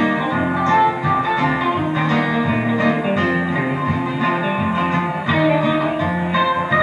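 Live band playing a guitar-led instrumental passage, with acoustic and electric guitars over the band.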